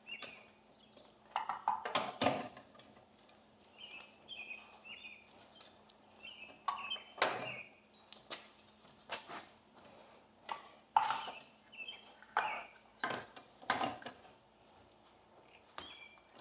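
Scattered knocks and clunks, about eight spread through the stretch, with small birds chirping in short repeated phrases between them.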